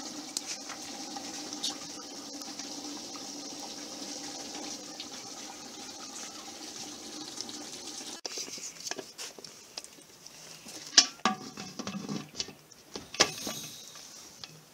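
Steady watery hiss from the pot's contents heating over a wood fire, with small crackles. After about eight seconds it gives way to the clatter of an aluminium pressure-cooker lid being handled and fitted, with a few sharp metallic knocks.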